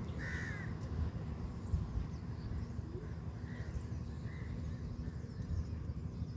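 A crow cawing: one loud short caw about a third of a second in, then two fainter caws a few seconds later, over a steady low rumble.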